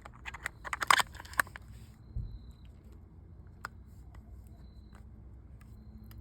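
Sharp clicks and light metal rattles from the parts of a steering-wheel quick-release hub being worked by hand: a quick cluster in the first two seconds, then a few single clicks and one sharp click near the end.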